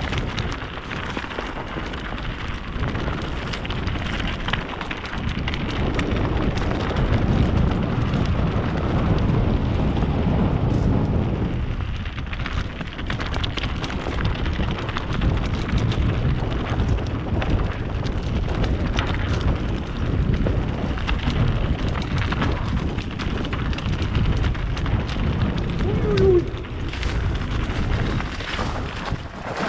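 Mountain bike descending fast on a dirt trail: wind buffeting the onboard microphone over the rumble of tyres on the ground and the rattle of the bike over bumps. A brief squeak near the end.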